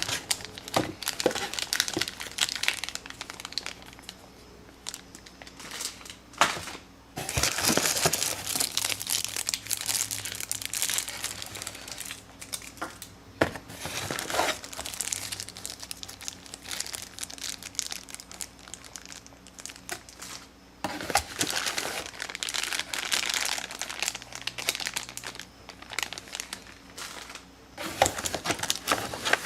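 Packaging being unwrapped and handled: crinkling and rustling of wrapping in irregular bursts, with scattered clicks and knocks.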